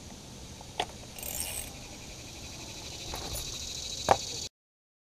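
Steady high-pitched trilling of insects outdoors, with a couple of short light knocks from handling the removed fuel filter element. The sound cuts off suddenly about four and a half seconds in.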